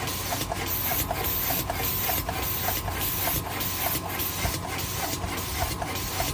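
Automatic rhinestone-pasting dispensing machine running. A steady hiss breaks off briefly a little under twice a second in an even machine rhythm, with light regular ticking and a steady hum underneath.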